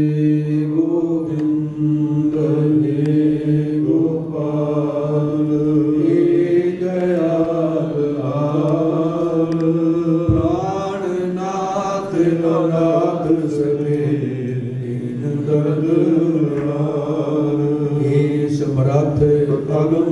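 Sikh devotional chanting: slow, drawn-out sung voices over a steady low drone, the melody moving in slow steps.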